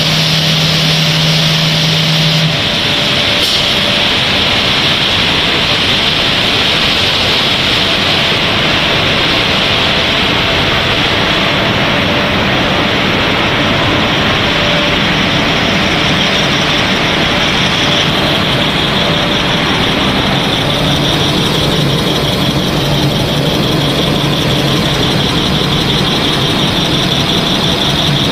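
Steady machinery noise of a running snack-pellet production line (mixer, extruder line, conveyors and dryer), a dense high hiss with a few steady hums under it. The sound changes abruptly about two and a half seconds in and again around eighteen seconds.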